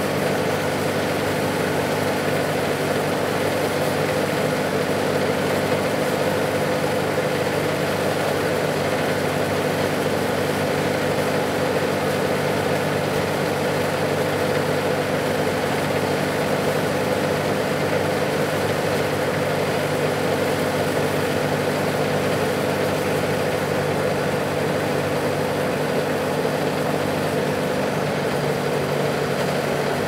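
Diesel engine idling steadily and evenly, with no change in speed.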